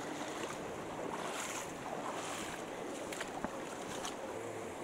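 Steady rush of a shallow river running over rock shoals, with wind on the microphone and a few faint clicks in the second half.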